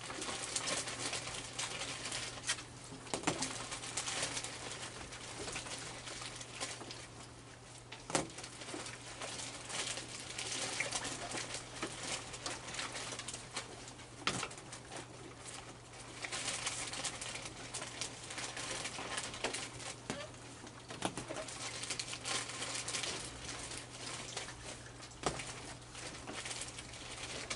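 A crowd of raccoons eating dry kibble and marshmallows off a wooden deck: a continuous crackle of crunching, chewing and small clicks and taps, with the odd soft call among them.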